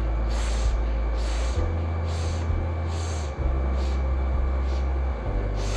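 Kapalbhati yoga breathing: short, forceful exhalations through the nose, about two a second in an even rhythm, over a steady low hum.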